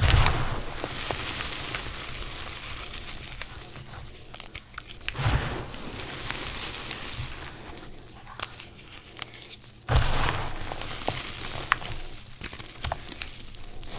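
Hands crushing and crumbling gym chalk reforms: powdery crunching and rustling, with three heavier squeezes about five seconds apart and small pieces clicking in between.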